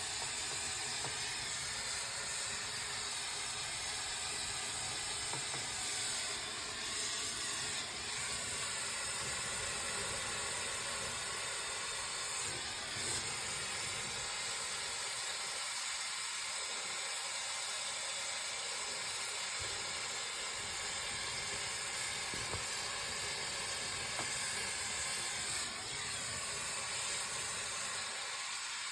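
A steady, even hiss that runs on without a break.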